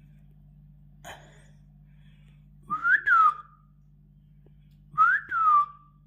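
Two whistles, each gliding up and then back down, a couple of seconds apart, over a steady low hum.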